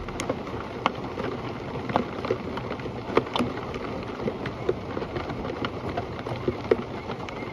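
Steady rain, with individual drops ticking sharply and irregularly on a hard surface.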